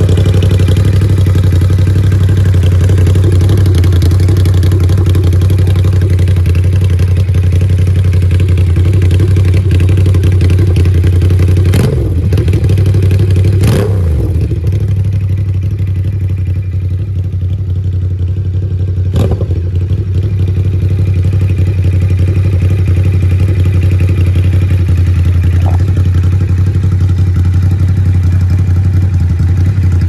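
Ducati SuperSport's 937 cc L-twin idling steadily through an aftermarket Austin Racing exhaust, just after being started. A few brief sharp knocks cut through the idle around the middle.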